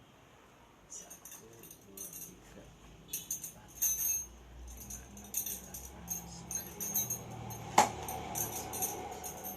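Small metal pieces jingling and clinking in repeated short bursts as camping-tent gear is handled, with one sharp knock near the end.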